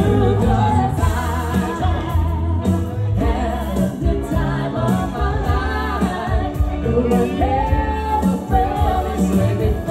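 Live band playing a pop song: male and female singers on microphones over electric guitar and drums, with a strong bass line, amplified through stage speakers.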